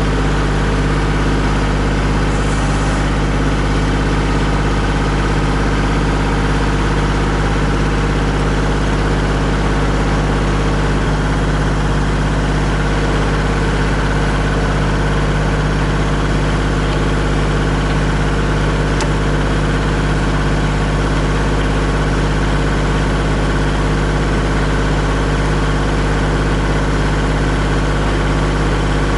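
Kubota compact tractor's diesel engine idling steadily, with no change in speed.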